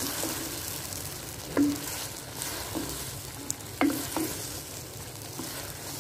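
Wooden spoon stirring sliced ghiya tori (sponge gourd) in a clay pot, scraping and knocking against the pot every second or so, over a steady sizzle of frying masala.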